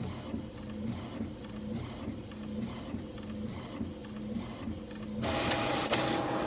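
A small machine running with a steady whir and a low hum that breaks off and returns, growing louder and hissier for about the last second.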